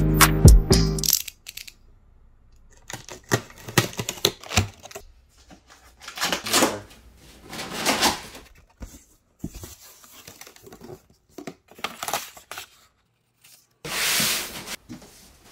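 Snap-off utility knife slicing the seal tape and cardboard of a large monitor box: a run of short rasping cuts and tearing rips with small clicks. Near the end comes a longer scraping rush as the cardboard box is shifted.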